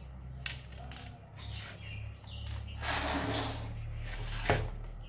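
Screwdriver working screws out of a graphics card's cooler shroud: a few sharp clicks and a short scrape, the loudest click about four and a half seconds in, over a steady low hum.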